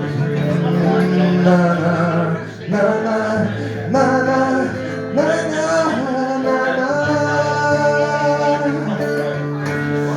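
Live song performance: a man singing a melody over guitar accompaniment.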